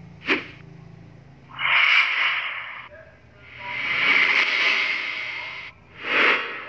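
A series of swoosh transition sound effects played one after another. A short sharp swish comes just after the start, then a longer hissing whoosh about two seconds in. A still longer one swells and fades, and another short swish comes near the end.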